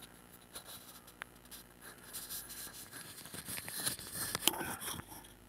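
Faint rustling and scattered light clicks from a phone being handled and carried while filming.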